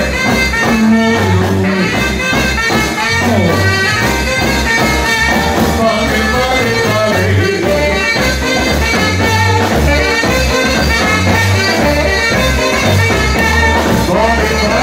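A live band playing an upbeat song: a drum kit keeps a steady beat under electronic keyboard and wind-instrument melody lines.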